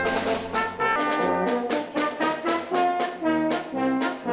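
Small brass band of trumpets and tubas playing a lively tune, the trumpets carrying the melody over stepping bass notes.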